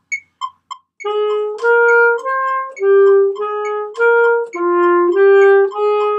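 Alto saxophone playing a slow melody of held notes against a metronome app ticking about three times a second. The ticks are heard alone for about the first second before the saxophone comes in.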